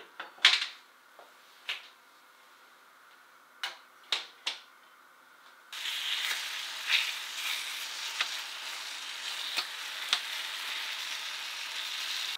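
A few sharp clicks and knocks, the loudest right at the start, as a gas hob burner is turned on. About six seconds in, a steady sizzle starts as strawberries cook in a wok over a high gas flame, with occasional spatula taps against the wok as they are stirred and lightly crushed.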